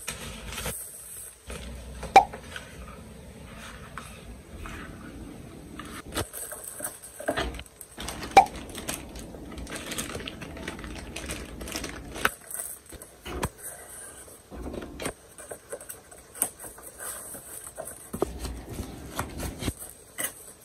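Rustling and crinkling of packaging as hands unpack a boxed computer monitor: thin white foam wrap and a plastic bag around the power adapter handled against the cardboard inserts, with a few sharp taps, the loudest about two and eight seconds in.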